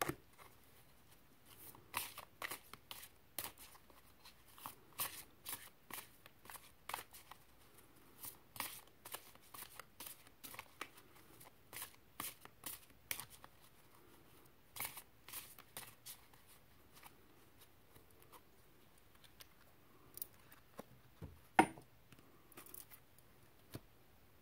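Tarot cards being shuffled and handled: a quick, irregular run of soft card snaps and taps that thins out after about two thirds of the way, with one louder click near the end.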